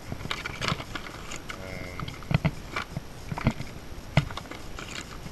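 Cardboard box and bagged plastic parts being handled: scattered knocks and taps with rustling.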